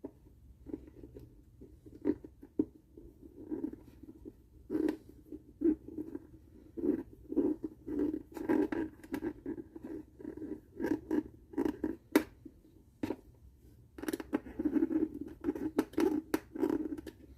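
Small screws being turned by hand with a little screwdriver to hold a ukulele bridge to the body: irregular short creaks and scrapes with sharp clicks, repeated stroke after stroke, with a pause of about a second around the middle.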